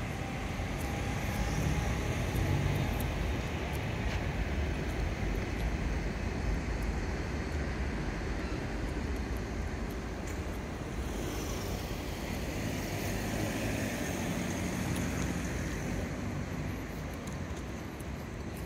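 Steady road traffic noise, a low rumble of passing cars that swells a little about two seconds in.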